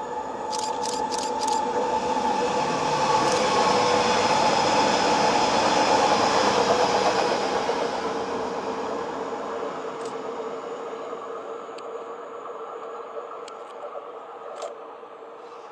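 Electric commuter train (Stadler FLIRT, VR Class Sm5) passing through the station without stopping. Its rumble and steady motor whine swell to a peak about five seconds in, then fade as it runs away. A few sharp clicks come about a second in.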